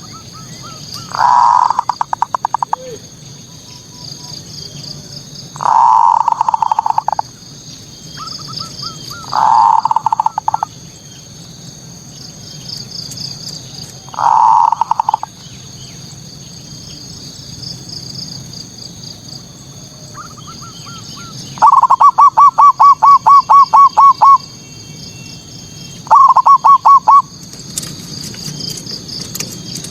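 Zebra dove (perkutut) cooing in six bouts of quick, staccato pulsed notes. The longest and loudest bout, about three seconds of evenly spaced notes, comes about two-thirds of the way in. This is the bird's full 'manggung' song, used as a lure to provoke rival perkutut. A faint, high, steady chirping runs beneath it throughout.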